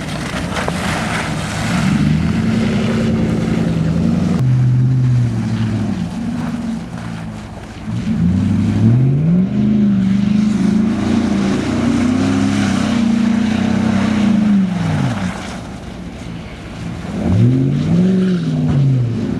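V8 pickup truck engine revving up and down hard during donuts in deep snow. It holds a long high rev from about eight seconds in, then drops, and rises and falls once more near the end.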